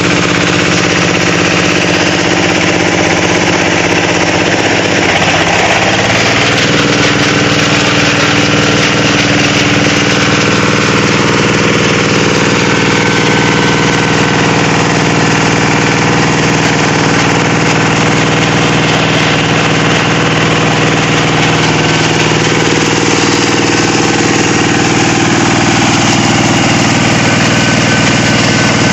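Plastic shredder machine running steadily with a loud, even mechanical hum. Its tone shifts slightly about five to six seconds in.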